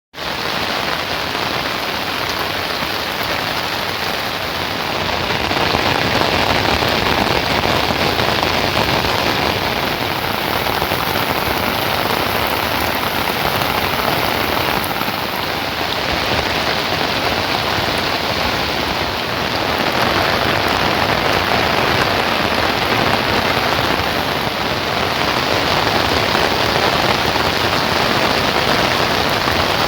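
Heavy rain falling steadily. It grows a little louder a few seconds in and again about two-thirds of the way through.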